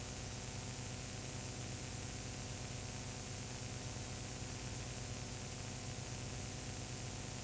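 Steady tape-like hiss with a low electrical hum and nothing else: the noise floor of a soundless 8 mm home-movie transfer, with no sound of the festival itself.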